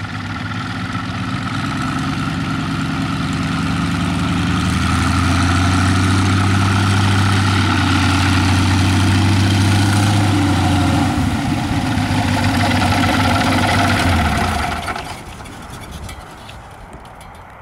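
Engine and propeller of an ultralight Caudron G-III replica biplane running steadily as it taxis on grass, growing louder as it comes closer. About fifteen seconds in the engine sound drops away sharply.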